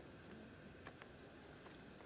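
Near silence: faint room tone, with a couple of faint ticks about a second in.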